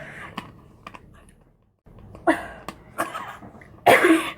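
A person coughing in sharp, harsh bursts, about three in the second half, as if choking on a drink; the coughing is feigned for a prank. A brief dead silence comes before the coughs.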